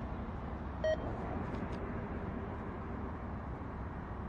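EMD SD-series diesel-electric locomotive running as it creeps along during switching, a steady low rumble. A single short beep sounds about a second in.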